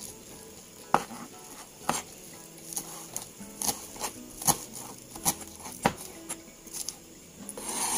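Kitchen knife chopping celery leaves and spring onions on a plastic cutting board: sharp, irregular knocks of the blade hitting the board. They come about once a second at first, then quicker from about three seconds in.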